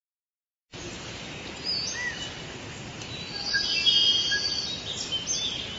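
Forest ambience: several birds chirping over a steady hiss, starting just under a second in and getting quieter near the end.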